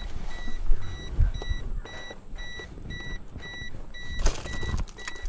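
Electronic warning beeper sounding short, evenly spaced high beeps, about two and a half a second, without a break. Underneath are the rustle and knocks of wiring being handled, with a louder burst of clicks just after four seconds.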